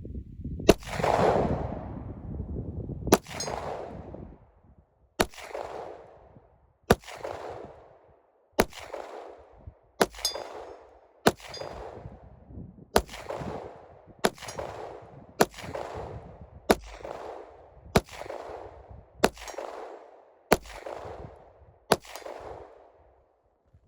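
A SIG P365 XL 9 mm pistol being fired in slow, steady single shots, fifteen in all, about one to two seconds apart. Each report is followed by a short echo that dies away.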